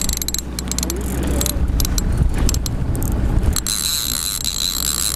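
Outboard motor running steadily at trolling speed, with wind and the clicks and knocks of a rod being handled in its holder. From about three and a half seconds in, a steady high buzz sets in: the ratchet clicker of a trolling reel paying out line.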